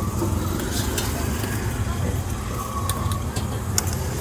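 Steady low rumble of a busy noodle-stall kitchen, with sharp metal clinks from a wire noodle-strainer basket and tongs, most of them in the second half.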